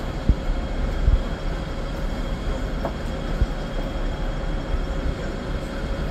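Steady low rumble and hum of a Hong Kong double-decker electric tram standing at a stop, heard from the upper deck, with a few dull low thumps.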